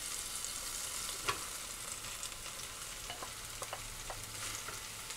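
Oil sizzling steadily in a frying pan of red bell pepper pieces, with a few faint ticks as sliced mushrooms are tipped in from a glass bowl.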